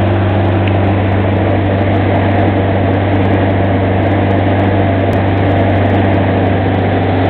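Glastron SV 174 speedboat's engine running steadily underway, a loud constant low drone, mixed with the rush of wind and water past the open boat.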